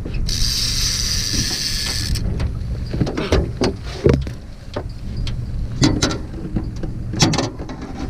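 Fishing reel drag buzzing for about two seconds near the start as the fish pulls line, then scattered clicks and knocks of rod and reel handling, over a steady low wind rumble on the microphone.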